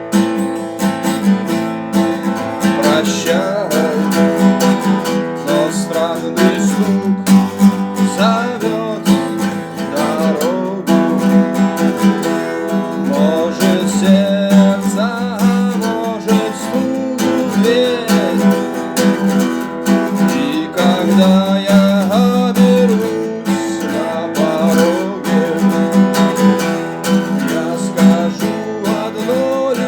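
Acoustic guitar strumming chords, with a melody line bending above it: an instrumental passage of a song.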